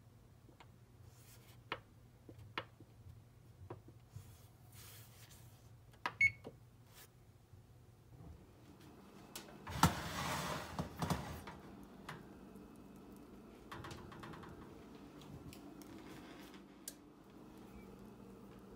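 Electric oven control panel: several short clicks as its buttons are pressed, then a short beep. About ten seconds in comes a louder clatter as the oven door is opened and the metal rack is handled.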